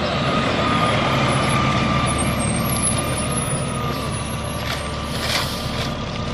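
Rear-loader garbage truck running at the curb: a steady engine rumble with a continuous high whine over it, and a few short clanks about five seconds in.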